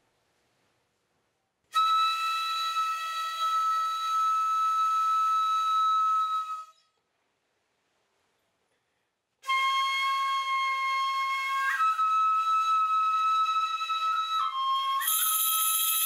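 Japanese shrine flute playing long, high held notes: one note sustained for about five seconds, then, after a pause, a slow melody stepping between a few pitches. Near the end, shaken kagura bells start jingling along with it.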